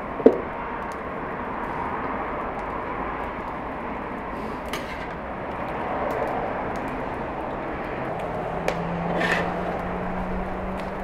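Mutton tail fat rendering in a large aluminium pot over a wood fire: steady sizzling and bubbling, with small crackles. A sharp metal clink of the stirring spoon against the pot comes just after the start, and a low hum comes in near the end.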